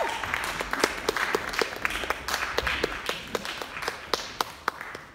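Audience applauding, the clapping thinning out and getting quieter toward the end.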